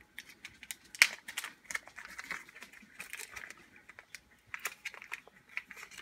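Small clear plastic bag crinkling and rustling in the hands as it is unwrapped, with many small irregular clicks and one sharper snap about a second in.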